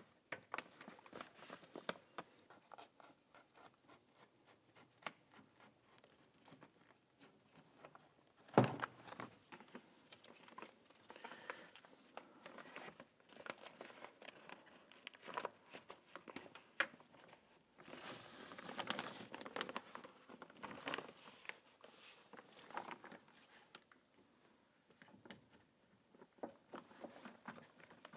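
Crinkling and rustling of the door's plastic water shield sheet as it is peeled away from its sticky adhesive and handled, with many light clicks and one sharper knock about eight and a half seconds in.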